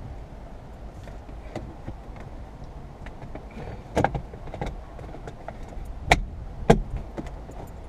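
Several sharp clicks and taps over a low steady hum, with the loudest strokes about four seconds in and two more in the last two seconds.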